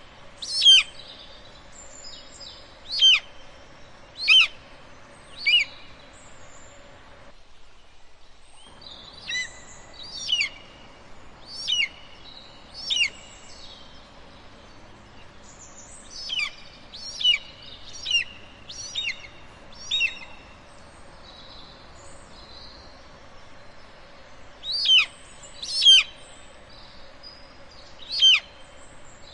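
Golden eagle calling: a series of short, sharp, high yelps, each falling quickly in pitch, about one a second, in groups broken by pauses of a few seconds.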